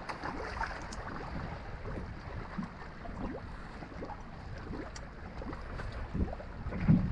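Small waves lapping and slapping against a bass boat's hull, over a low rumble of wind on the microphone, with a louder knock near the end.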